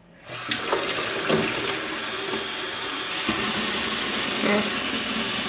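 Kitchen tap turned on about a quarter second in, then water running in a steady stream into a plastic watering can held under it.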